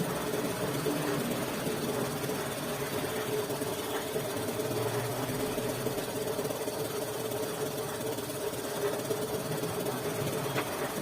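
Honda TMX155's single-cylinder four-stroke engine running steadily at a constant speed.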